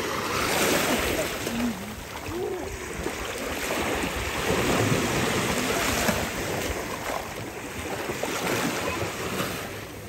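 Small sea waves lapping and splashing against a concrete breakwater and rocks in the shallows, with wind buffeting the microphone.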